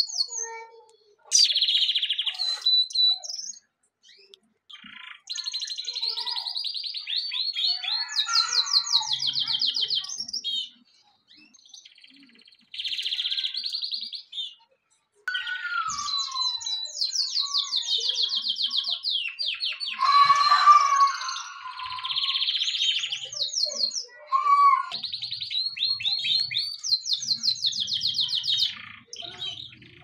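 Domestic canary singing: phrases of rapid, evenly repeated high trilled notes, broken by short pauses.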